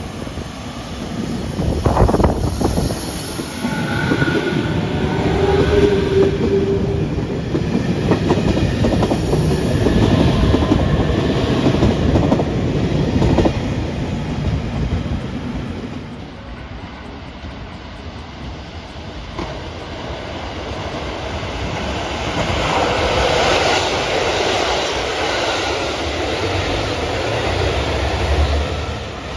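A train running past on the rails, its wheels clattering over the rail joints, with a short steady tone about five seconds in. The sound eases off about halfway through and builds again near the end.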